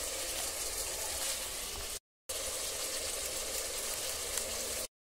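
Chicken pieces sizzling steadily in hot oil in a pressure cooker pot, with a low steady hum underneath. The sound cuts out to silence briefly about two seconds in and again at the end.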